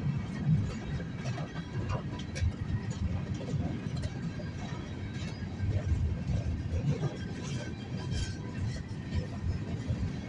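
Open-top hopper cars of a CSX freight train rolling past: a steady low rumble of steel wheels on rail, with scattered clicks and clanks from the cars.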